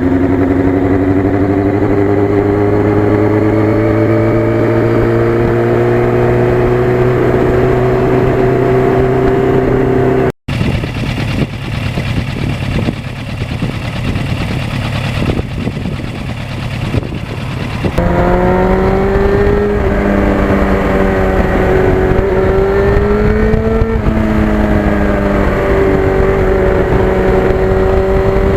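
Yamaha FZR1000 inline-four motorcycle engine pulling under load, its note climbing slowly for about ten seconds. After a cut comes a stretch of rushing noise with no clear engine note, then the engine note returns, rising and falling with the throttle.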